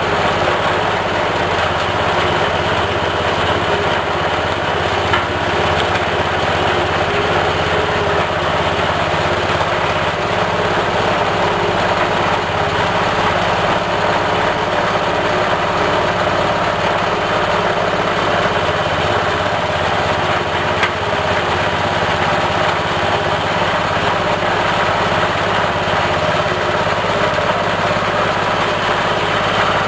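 Snail and chicken-bone grinding machine running steadily: a constant machine drone as its screw auger forces snail and bone through the die plate. Two brief knocks stand out, one about five seconds in and one about two-thirds of the way through.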